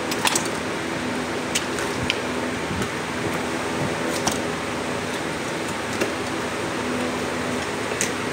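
A knife cutting up a raw chicken on a stone counter gives a few sharp clicks and knocks, one every second or two. Under them runs a steady fan-like hiss.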